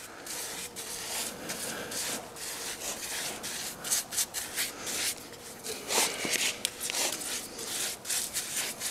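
A paintbrush scrubbing melted beeswax into the rough, chainsaw-cut end grain of a wooden stump: quick, irregular bristle strokes rasping on the wood.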